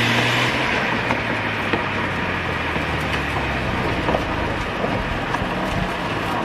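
1994 Mazda RX-7 slowing from about 40 mph to about 15 mph. Its rotary engine's steady note drops away about half a second in, leaving tyre and road rumble with scattered clicks and rattles.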